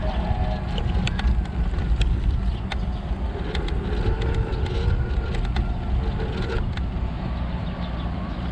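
A scooter rolling over street asphalt: a steady low rumble, with scattered sharp clicks and rattles.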